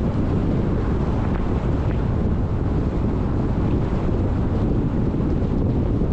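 Steady wind buffeting on the microphone of a camera mounted outside a moving car, over low, even road and tyre noise on wet, slushy streets.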